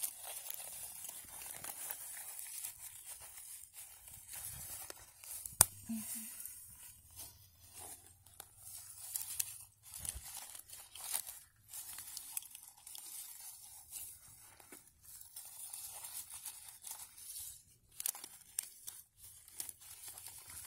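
Dry forest litter of twigs, pine needles and cones crunching and crackling irregularly, with one sharp snap about five and a half seconds in.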